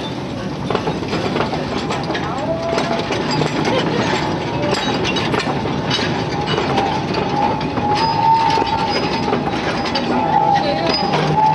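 Narrow-gauge steam locomotive and a train of open wagons rolling slowly past, wheels clicking and rumbling over the rail joints, with a steady high-pitched squeal and passengers chattering.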